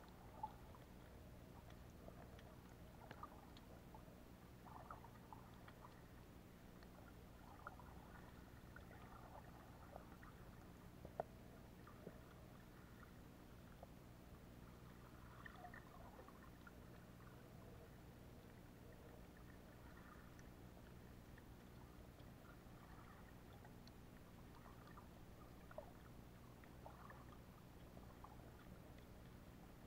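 Near silence: faint underwater ambience picked up through a submerged camera, a steady low hum with scattered soft clicks and ticks, the sharpest about eleven seconds in.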